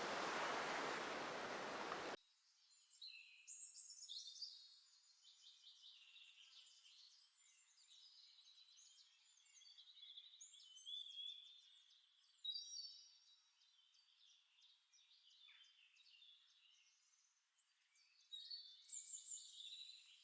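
A steady hiss that cuts off suddenly about two seconds in, followed by faint birdsong: several birds chirping and trilling in short, high phrases.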